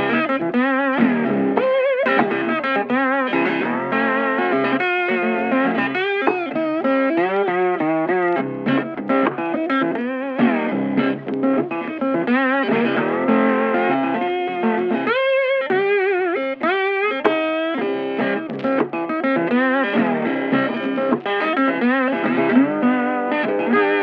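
Blues guitar music, a lead guitar playing notes with wide vibrato and bends over a steady accompaniment.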